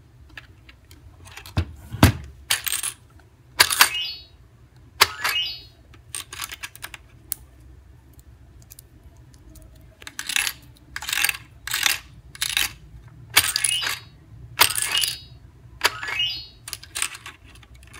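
Plastic toy coins clinking and clattering one after another as they drop through a toy cash register's coin mechanism and out of its coin chute. They come in two busy runs with a quieter spell between.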